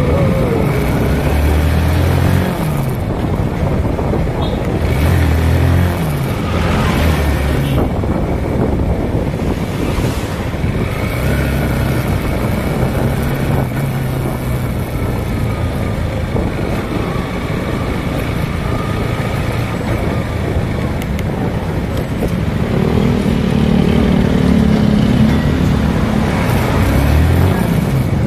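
Motorcycle engine running under way in city traffic, its pitch rising and falling several times as the rider opens and closes the throttle, over a steady rush of wind and road noise.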